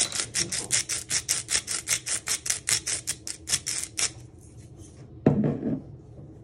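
Hand-twisted salt grinder grinding salt in a fast run of gritty clicks, about six or seven a second, stopping about four seconds in. A short low thump follows about a second later.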